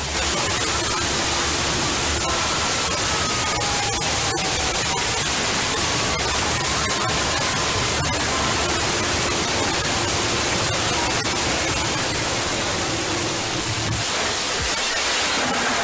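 Loud, steady static hiss, like white noise, with faint tones buried beneath it.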